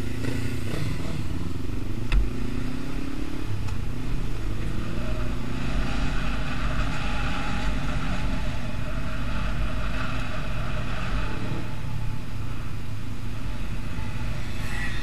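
Motorcycle engine running while riding, its pitch rising and falling with the throttle for the first few seconds and then holding steadier, over wind and road noise. A single sharp click about two seconds in.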